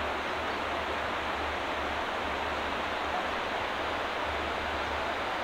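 Steady rushing of river water, an even noise with a low, wavering rumble underneath.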